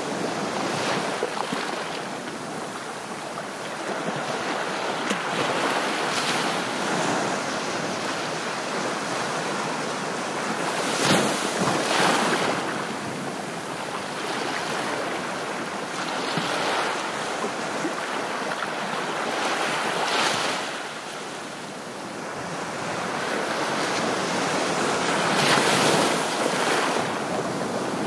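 Ocean surf: waves breaking and washing in, swelling and falling back every few seconds.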